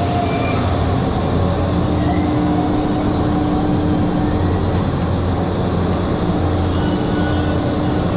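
Loud, steady mechanical drone with a constant low hum, running without a break.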